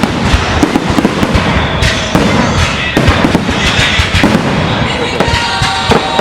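Fireworks going off in quick succession: a dense, continuous string of bangs and crackling, several reports a second.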